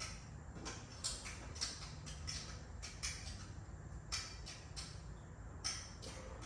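Faint, irregular light clicks and scrapes of small hand work, over a low steady hum.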